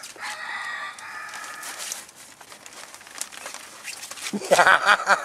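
Dobermann puppies vocalising as they play: a drawn-out whine in the first couple of seconds, then a quick, louder string of yaps near the end, with rustling from a fabric play tunnel.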